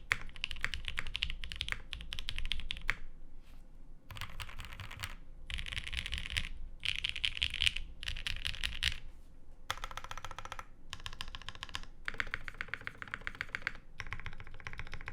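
Mode SixtyFive custom mechanical keyboard being typed on fast: lubed 62g Creamsicle linear switches in an isolated top-mount case with a carbon fiber half-plate and GMK keycaps, giving a dense clatter of keystrokes in runs broken by short pauses.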